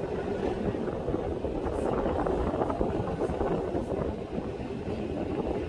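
Steady running noise of a heritage double-decker tram in motion, heard from its upper deck, mixed with wind buffeting a smartphone microphone.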